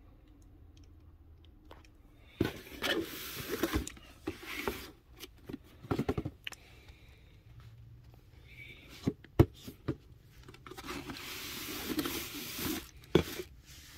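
Handling noise from sneakers being picked up and turned over: rustling and scraping in two spells, with a few sharp knocks, the loudest about nine and a half seconds in.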